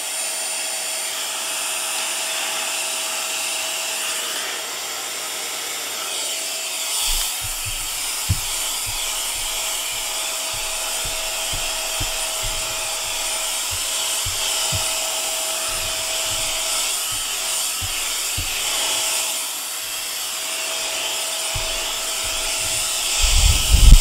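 Cordless mini handheld vacuum cleaner running with a steady high whine and hiss as it sucks up salt from a desk. From about a quarter of the way in there are irregular low knocks and rubbing as the nozzle is worked over the surface, with a louder knock near the end.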